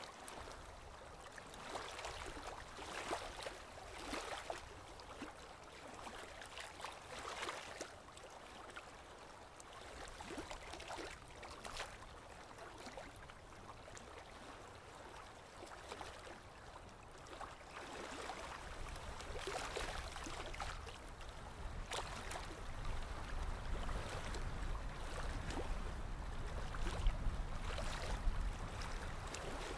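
Sea water splashing and lapping in the shallows, with irregular small splashes. A low rumble builds in the second half.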